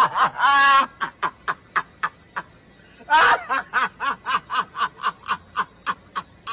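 A person laughing: a long run of short pitched 'ha' bursts, about four a second, with a brief pause about two and a half seconds in before the laughter picks up again.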